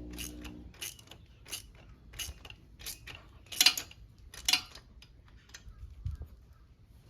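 Hand ratchet clicking in a series of separate strokes as an M8 exhaust bolt is tightened down on a Honda CJ360 motorcycle. A steady low hum stops under a second in.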